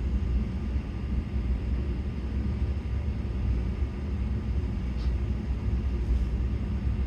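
Steady low rumble and hum of background machinery running, with a faint click about five seconds in.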